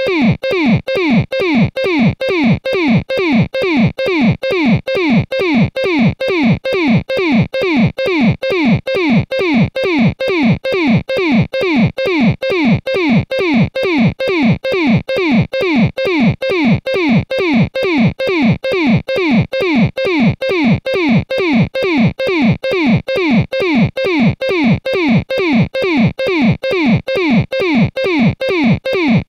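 Synthesized electronic blip that dives steeply in pitch, repeated evenly between two and three times a second: a looped circuit-bent-style 'warble' sound effect.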